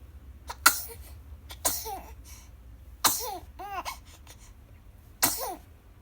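Newborn baby sneezing four times in quick succession, each a sudden sharp burst. Several of the sneezes are followed by a brief rising-and-falling little vocal sound from the baby.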